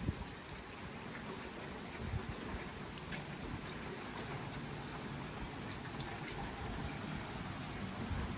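Steady rainfall: an even hiss of rain with scattered individual drops ticking through it.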